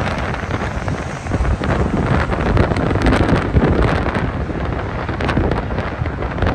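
Wind buffeting the microphone of a phone filming from a moving car, with road noise underneath.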